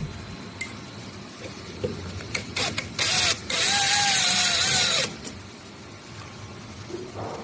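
A small electric motor runs for about a second and a half with a slightly wavering whine, after a few short clattering bursts.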